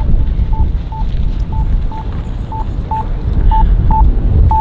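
Short electronic beeps of one steady pitch, repeating about twice a second, over a heavy low rumble of wind buffeting the microphone.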